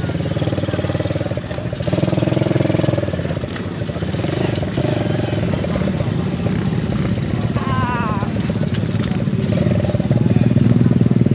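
Small ATV (quad bike) engine running close by with a fast even pulse, revved up a little about two seconds in and again near the end. A voice calls out briefly in the middle.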